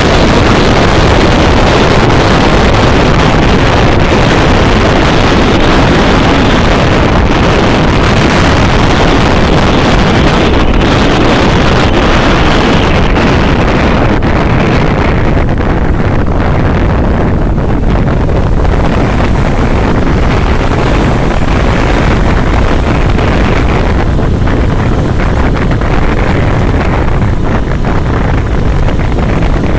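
Wind rushing and buffeting on the microphone of a moving open vehicle, over the steady sound of its engine. The rush grows duller about halfway through.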